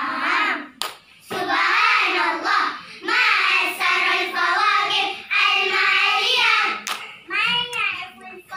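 A group of young children reciting Arabic together in unison, in a loud, sing-song choral chant with short pauses between phrases. Two sharp hand claps cut in, about a second in and again near seven seconds.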